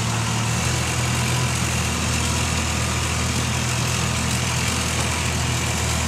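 Diesel engine of a Komatsu PC340 tracked excavator running steadily, a low, even hum with no change in speed.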